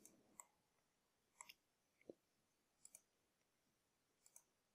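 Near silence broken by a handful of faint computer mouse clicks, spaced irregularly, as references are picked one by one.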